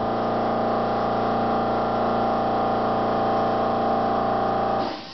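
Steady, loud machine hum from a running electric motor, which cuts off abruptly near the end.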